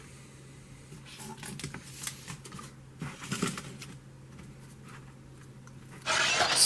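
Clusters of small clicks and rattles over a faint steady hum, then a loud hissing burst near the end, like a transformation-belt sound effect.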